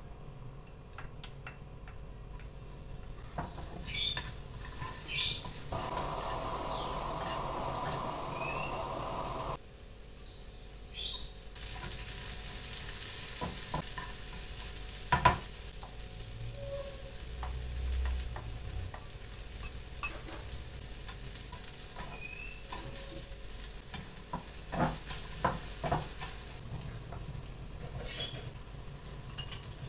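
Hot oil sizzling in a small frying pan as shredded vegetables and then chopped green chilies are stir-fried, starting about two seconds in. A spatula scrapes and clicks against the pan throughout.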